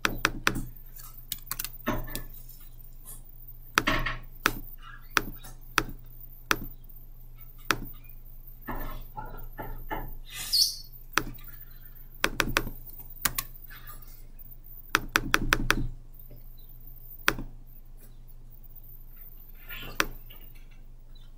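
Computer mouse clicks, singly and in quick runs of several, over a steady low electrical hum.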